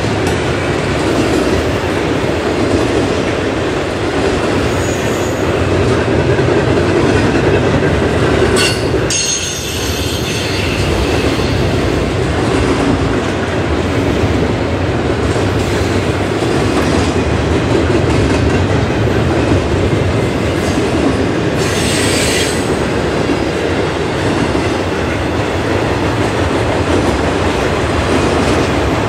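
Double-stack intermodal well cars of a freight train rolling past: a steady loud rumble of steel wheels on rail, with a couple of brief high wheel squeals, one about nine seconds in and another around twenty-two seconds.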